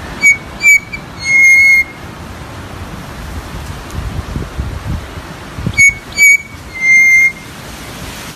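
A bird sings a clear whistled phrase twice: two short notes, then a longer held note at the same pitch. Steady background hiss runs between the phrases.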